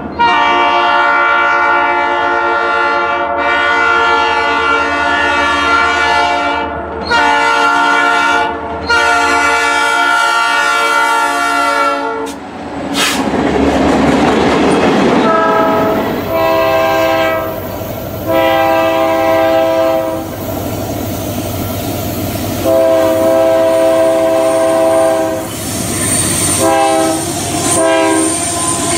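A multi-tone train horn sounding in repeated long blasts over running-train noise. A hissing rush comes about halfway through.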